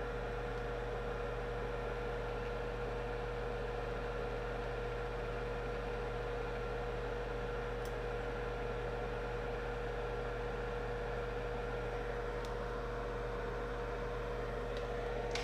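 Steady electrical hum with hiss: a constant tone and a low mains buzz, broken by a few faint ticks.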